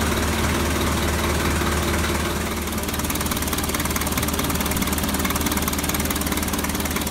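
Toyota 3B four-cylinder diesel engine idling with a steady, even clatter, freshly started on new glow plugs after a hard-starting problem.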